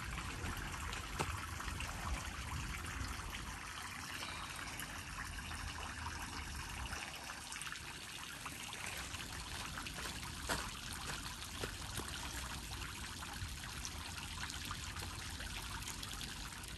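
Small garden fountain: a single jet of water splashing steadily back into its round stone basin.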